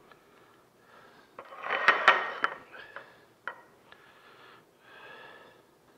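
Crisp lettuce leaves crinkling and rustling as they are torn and laid on a sandwich, loudest a little under two seconds in with a couple of sharp clicks, then a few softer rustles.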